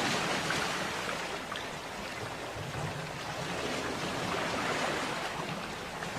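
Sea waves washing on a shore, a continuous rushing surf that swells and eases slowly.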